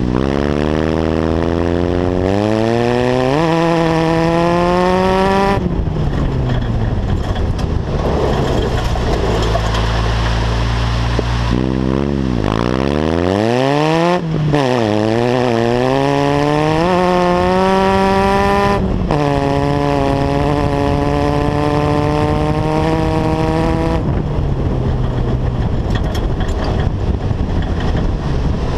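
Off-road buggy's engine accelerating and easing off repeatedly on a gravel track: its pitch climbs steeply three times, holds steady, then drops sharply each time the throttle is let off.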